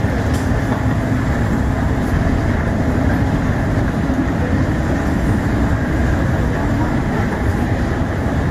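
Steady, loud interior rumble of a moving vehicle, mostly low in pitch, with no single knocks or tones standing out.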